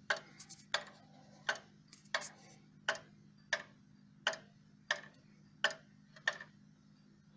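Sessions banjo wall clock's time-only movement ticking evenly, a little faster than one tick a second, over a faint steady hum. The ticks stop near the end.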